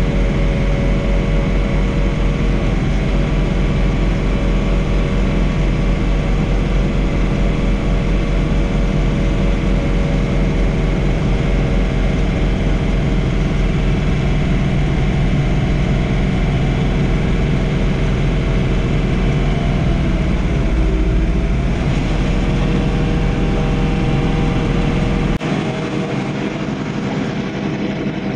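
John Deere 3046R compact tractor's three-cylinder diesel engine running steadily with a deep, heavy rumble. About 25 seconds in the sound changes abruptly, the deep rumble dropping away.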